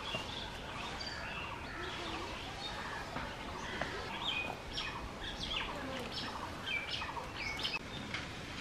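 Small birds chirping and calling, many short high chirps overlapping, busiest in the second half.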